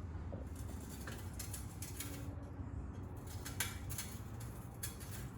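Scattered metal clicks and taps of a wrench working a bicycle's rear axle nut loose, one sharper click about three and a half seconds in.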